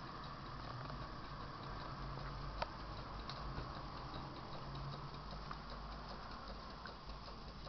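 Small solar-powered Stirling engine running, its mechanism giving a light, regular ticking over a steady background hiss, with one sharper click a little over two and a half seconds in.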